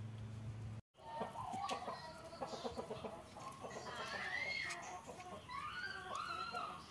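Chickens clucking and calling, a string of short clucks with a few longer rising-and-falling calls. Before that, a steady low hum cuts off abruptly about a second in.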